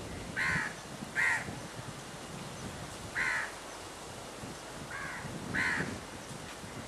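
A crow cawing five times at uneven intervals, short harsh calls.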